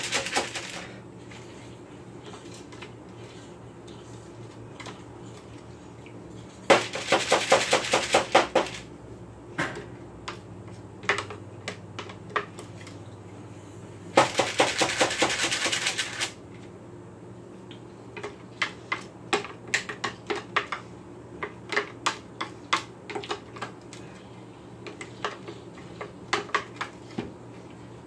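A spoon scraping and clicking against a metal mixing bowl while scooping out cookie dough. There are two bursts of rapid clicking about two seconds long, near a quarter and near halfway through, then scattered single clicks and taps.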